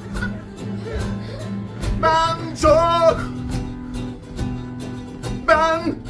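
Singing over steady instrumental backing chords: a voice holds two short wavering notes about two seconds in and another just before the end.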